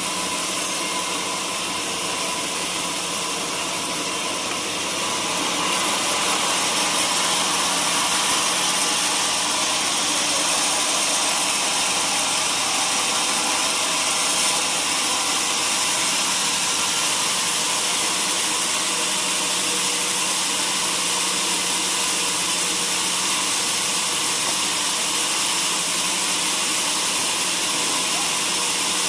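Sawmill machinery running steadily: a motor hum under a loud, even hiss. It grows louder about six seconds in and then holds.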